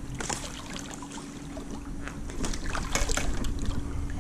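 Water trickling and splashing as a pool vacuum hose is pulled out of the pool and drains back into the water, with a few light splashes and knocks and a faint steady hum underneath.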